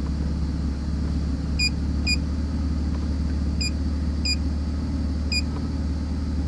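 BMW 330Ci's 3.0-litre straight-six idling steadily. The owner is diagnosing it for a random misfire (code P0300) that he traces to vacuum leaks. About five short electronic beeps sound over it, some in quick pairs.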